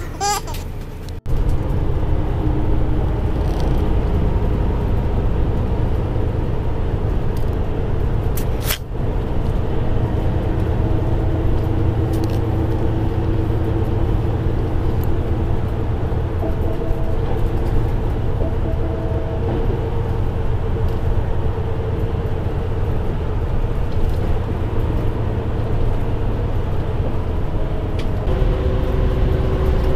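Steady rumble of a coach's engine and road noise, heard from inside the passenger cabin.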